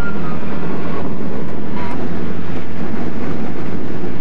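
Steady road and engine noise inside the cabin of a car driving at highway speed, a constant low hum under a rushing hiss.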